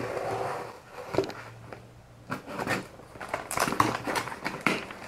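Cardboard parcel box and its packing being opened by hand. A tearing sound runs through the first second, a click follows, then dense crackling and rustling from about halfway that grows louder toward the end.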